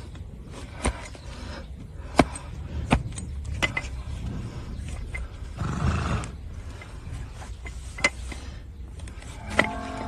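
Scattered sharp knocks and clicks, about six, from hoof-trimming tools working a donkey's overgrown hoof, with a short rushing noise about six seconds in.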